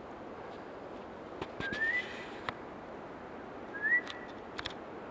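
A person whistling twice, each a short rising whistle that levels off at the top, a couple of seconds apart, with a few light clicks and a steady rush of flowing water underneath.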